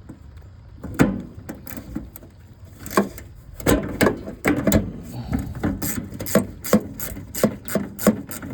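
Klein ratcheting screwdriver being handled and worked: a few scattered clicks, then from about halfway a run of ratchet clicks at roughly two or three a second.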